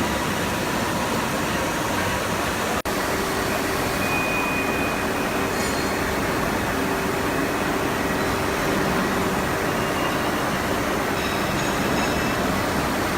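Steady hum and hiss of running industrial machinery, with faint steady tones over it; the sound cuts out for an instant about three seconds in.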